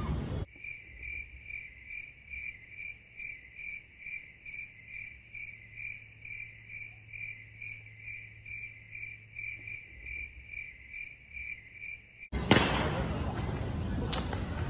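Cricket-chirping sound effect, edited in over cut-out scene audio: a thin, high chirp repeating evenly about three times a second, the comic 'nothing is happening' cue while a firecracker is slow to go off. It stops abruptly about twelve seconds in, when the outdoor sound returns with one sharp crack.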